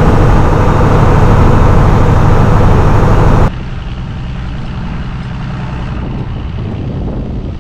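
Fishing boat's inboard diesel engine running steadily with a fast, even pulse, loud and close. About three and a half seconds in the sound drops abruptly to a quieter, duller engine drone.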